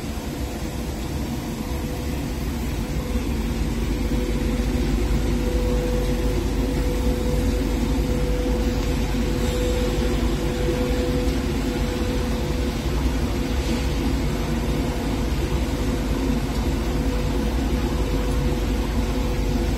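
Semi-automatic powder coating line running: a steady machine hum with a constant mid-pitched tone over a low rumble, from the spray booth's equipment and fans. It grows a little louder over the first few seconds, then holds steady.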